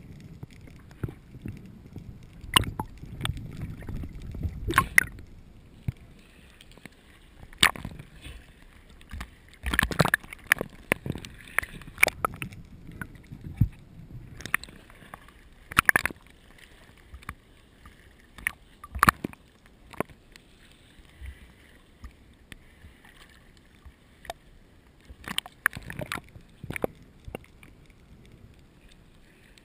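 Muffled underwater sound heard through a GoPro's waterproof housing: a low water rumble for the first few seconds, then scattered sharp clicks and knocks at irregular intervals, some in quick clusters.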